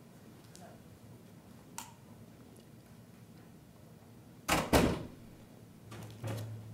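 A microphone being handled while its fault is worked on: two loud bumps about four and a half seconds in, then softer knocks and a steady low electrical hum that sets in near the end.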